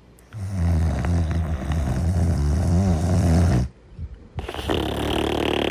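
Snoring: one long, low snore lasting about three seconds, a short pause, then a breathier breath starting near the end.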